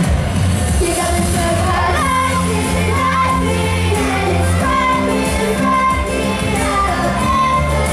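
A pop song performed live: a solo voice singing a gliding melody over a backing track with steady sustained bass notes.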